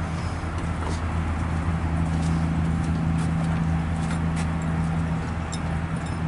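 Steady low hum, even and unchanging, with a few faint high ticks over it.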